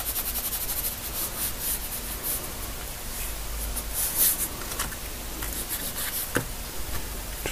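Graphite pencil scratching on drawing paper in quick hatching strokes, rapid at first, then sparser, as a sketch is shaded. One knock about six seconds in.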